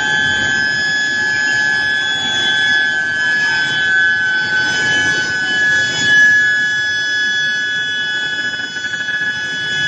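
Steel billet induction heating furnace running, its coil giving a steady high-pitched whine at the power supply's operating frequency over a rough mechanical noise.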